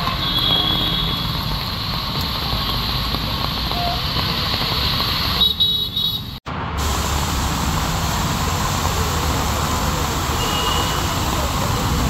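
Heavy rain and road traffic on a flooded street: a steady hiss of rain and of tyres running through standing water, mixed with the engines of passing vehicles. The sound cuts out for a moment about six and a half seconds in.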